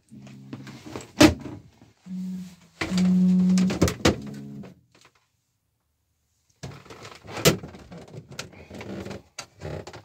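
Electric motor of a roof-mounted Maxview automatic satellite dish humming in short spells as it turns to search for the satellite, loudest for about a second near the middle. In the second half, plastic bathroom cupboard doors click and knock as they are opened.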